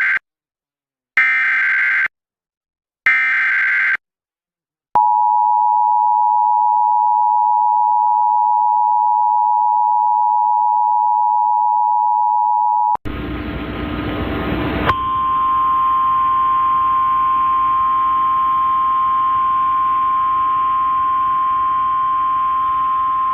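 Emergency Alert System tones for a tornado warning. Three short screeching SAME data bursts open it, then the steady two-tone EAS attention signal sounds for about eight seconds. A couple of seconds of radio hiss follow, then a single steady tone over the hiss, the relayed NOAA Weather Radio warning alarm tone.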